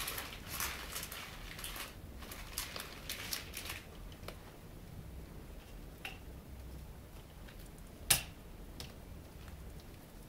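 Light clicks and taps of a Persian kitten batting and biting a toy butterfly dangling on a string against a cabinet drawer, busiest in the first few seconds, with one sharper click about eight seconds in.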